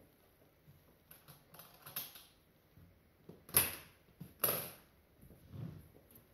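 Metal latches of a hardshell guitar case being flipped open: a few light clicks, then two sharp snaps about a second apart, followed by softer knocks as the lid is handled.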